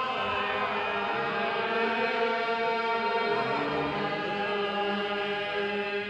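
Slow, chant-like singing by a group of voices: long held notes that slide from one pitch to the next.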